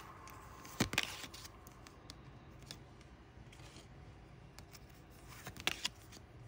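Two short bursts of sharp clicking and rustling from handling trading card booster packs and cards, one about a second in and one near the end.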